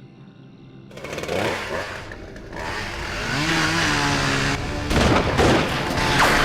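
Large chainsaw starting up and running, its engine pitch wavering as it revs, with sudden loud hits over it in the second half.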